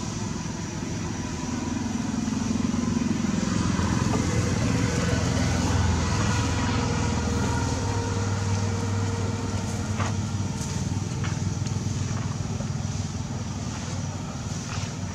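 A motor vehicle's engine running with a low rumble. It grows louder a couple of seconds in and slowly fades after the middle.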